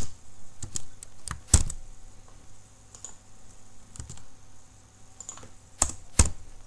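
Keystrokes on a computer keyboard: scattered single key presses with irregular pauses between them, a few struck harder than the rest.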